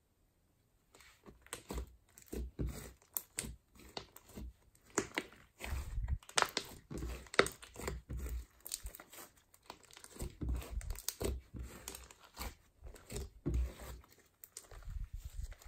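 Glittery silver slime being kneaded and squeezed by hand: irregular sticky crackling and squelching clicks, starting about a second in.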